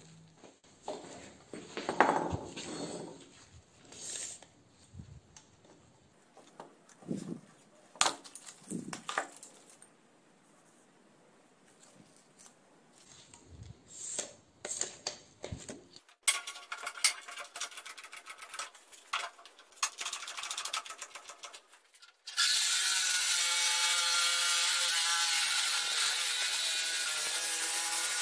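Steel plates and tools knocking and clinking as they are handled on a wooden workbench, then a few seconds of rapid clicking. About six seconds before the end a reciprocating saw starts and runs steadily, its blade cutting through a rectangular steel tube; this is the loudest sound.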